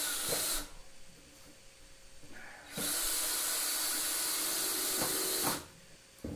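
Cordless drill/driver driving #8 wood screws into 2x4 lumber without pilot holes: a short burst at the start, then a longer run of about three seconds from near the middle, with a steady motor hum under it.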